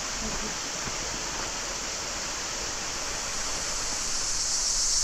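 Cicadas shrilling in one steady high-pitched hiss, growing louder toward the end, over an even rushing noise.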